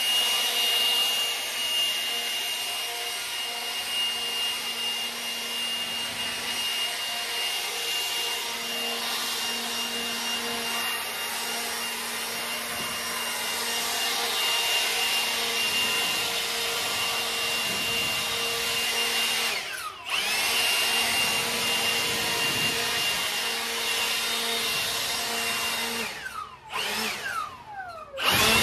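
Cordless electric leaf blower running steadily, a high motor whine over rushing air. It cuts out briefly about two-thirds of the way through and spins back up, and near the end it goes off and on, the whine falling in pitch as the motor slows.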